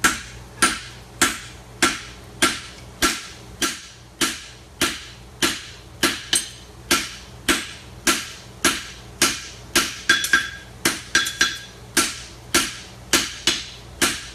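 Farrier's hammer striking a horseshoe on an anvil in a steady rhythm, about one and a half blows a second, each with a short metallic ring. A few quick double strikes come in the second half.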